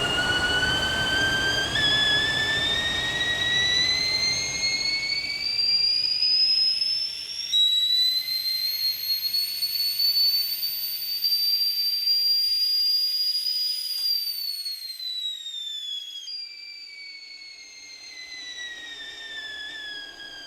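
Whistling kettle at the boil, its high whistle rising in pitch as the low boiling rumble fades, then holding a steady high note for several seconds. Over the last few seconds the whistle slides down in pitch and grows quieter.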